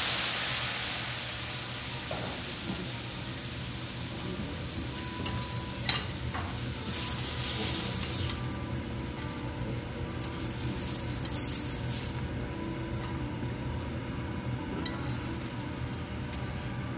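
Kuroge wagyu beef cubes sizzling on a steel teppanyaki griddle, the hiss loud just after the flambé and dying down over the first two seconds to a steady sizzle. About six seconds in, a sharp metal clink and a short scrape of the chef's spatulas on the griddle.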